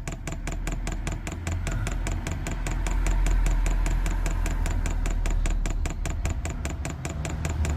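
Diesel heater fuel dosing pump clicking rapidly and evenly, about six ticks a second, as it primes the fuel line. A steady low rumble runs underneath.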